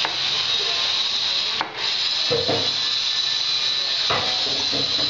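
Kitchen knife chopping spring onions on a wooden chopping board, a handful of uneven cuts knocking on the wood, over a loud, steady hiss.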